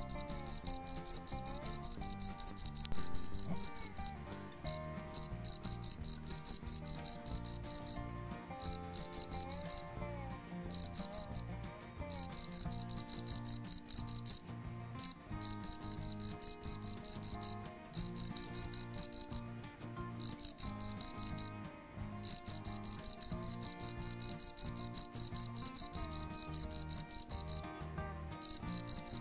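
Male field cricket singing close up, with its wings raised: loud, high-pitched chirping in runs of rapid pulses one to three seconds long, broken by brief pauses.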